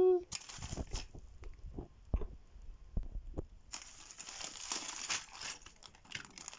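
Bubble wrap and plastic packaging crinkling and rustling as a parcel is unwrapped by hand. A few dull knocks come in a quieter stretch in the first half, then the crinkling turns dense and steady from about the middle on.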